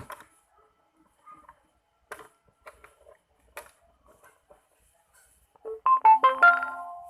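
Faint small clicks, then about six seconds in a quick run of electronic beep tones at changing pitches, lasting about a second and fading out.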